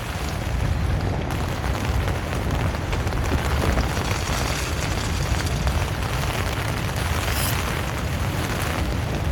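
Strong wind buffeting the microphone and tent: a steady low rumble with a windy hiss over it.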